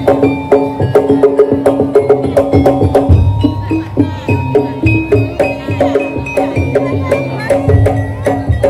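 Madurese daul percussion ensemble playing: quick, dense drum and block strikes, several a second, with pitched ringing tones held over them.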